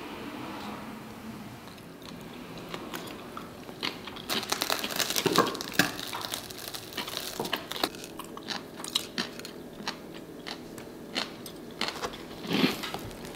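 Knives and forks cutting through crisp toast on stoneware plates: the toast crust crunches and crackles in quick, irregular bursts, with light clicks of cutlery on the plates. The first few seconds are quieter, and the crunching starts about four seconds in.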